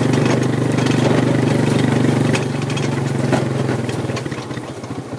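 An engine idling steadily, then easing off to a slower, uneven idle with separate beats about four seconds in.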